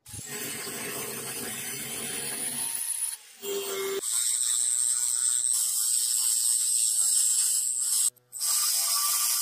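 Angle grinder grinding the profile of a steel knife blank cut from a bearing, a steady high whine with rasping from about four seconds in, broken off briefly just after eight seconds. Before that, a quieter steady rasping noise ends with a short low tone.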